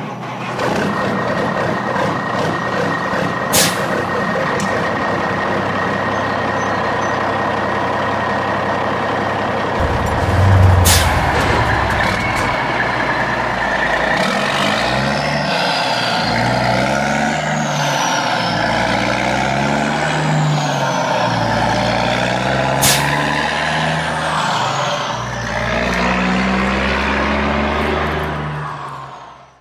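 Heavy diesel truck engine sound running steadily, then rising and falling about every two seconds in the second half, with three sharp clicks along the way.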